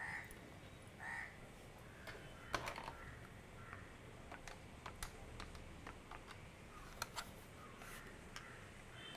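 Push-button desk telephone being dialled: faint clicks of its keys pressed one after another, with short keypad beeps.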